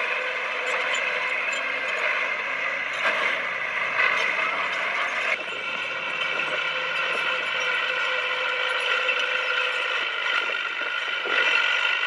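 Komatsu crawler bulldozer working, its engine running under a steady high-pitched squeal and clatter of steel tracks. The sound shifts about five seconds in, then carries on.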